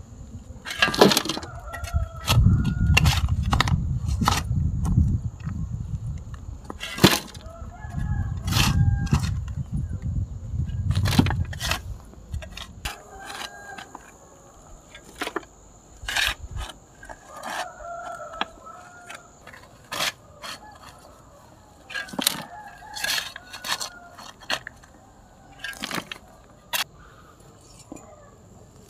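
Chickens clucking and a rooster crowing, over irregular sharp knocks. A low rumble fills the first dozen seconds.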